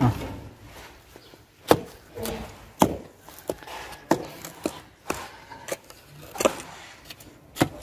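Shovel blade chopping into damp, sandy soil in a trench, with sharp separate strikes about once a second.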